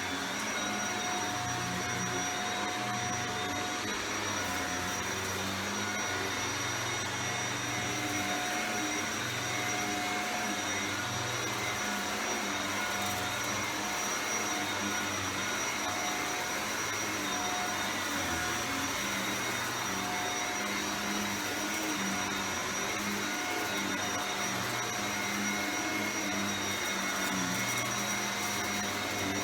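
Shark Rotator Powered Lift-Away upright vacuum cleaner running steadily, a motor whoosh with a thin high whine over it.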